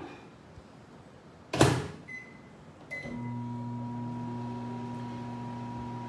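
Microwave oven door shut with a loud knock, two short keypad beeps, then the oven starts running with a steady hum about three seconds in.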